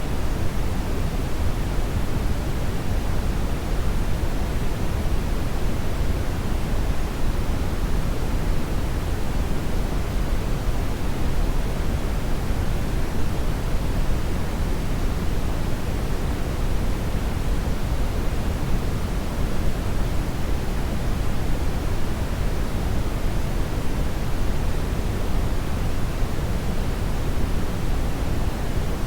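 Hair dryer blowing steadily: an even, unchanging rushing noise, heaviest in the low end, with no distinct motor whine.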